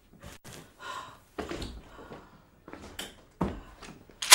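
A woman's distressed breathing and gasps, mixed with a few soft thumps and rustles as she drops onto a sofa.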